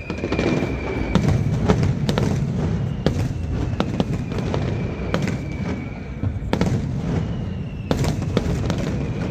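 Fireworks display going off overhead: a rapid series of sharp bangs and pops at irregular intervals. Long high whistles, each falling slightly in pitch, sound over them, one at the start, one from about three seconds in and one near the end.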